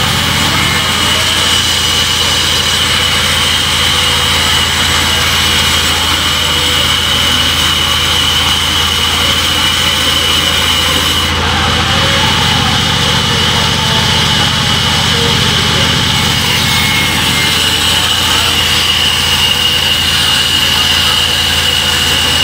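Sawmill band saw running: a steady machine hum with a continuous high whine over it.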